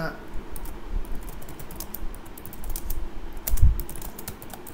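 Typing on a computer keyboard: irregular keystrokes in short runs, busiest near the end, with a dull thump about three and a half seconds in.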